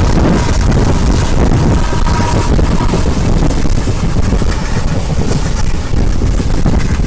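Passenger train running along the track: a steady, loud rumble of the coach and wheels, with wind buffeting the microphone.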